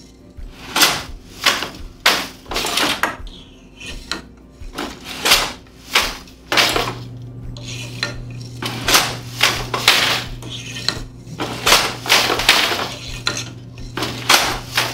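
Handweaving on a wooden table loom: a quick run of wooden clacks and knocks as the end delivery shuttle is thrown through the shed and caught, and the beater presses each weft pick into place.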